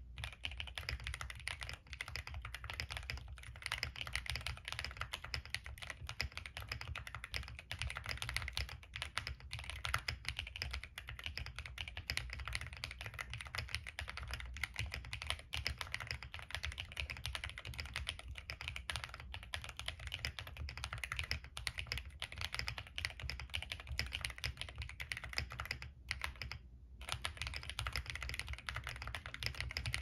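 Continuous fast typing on a plateless MK870 TKL mechanical keyboard with stock Gateron Baby Raccoon linear switches, tape and coin-weight mods and PBT Cherry-profile keycaps: a dense run of key clacks with one brief pause about three-quarters of the way through.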